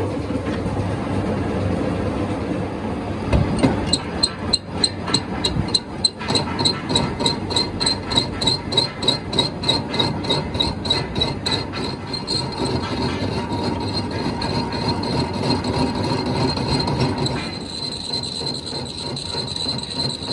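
Metalworking machine running in a workshop, cutting a steel pinion. From about four seconds in it ticks regularly, three to four times a second, with a high ring. Later it settles into a steady high whine.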